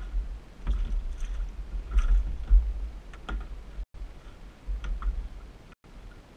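Wind rumbling on the microphone on a boat's deck, with scattered knocks and clicks as a fish goes into a deck hatch and the hatch lid is shut. The sound cuts out for an instant twice.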